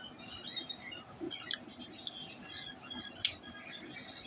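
Close-up eating sounds: chewing of chicken nuggets with small, irregular mouth clicks and crackles, faint throughout.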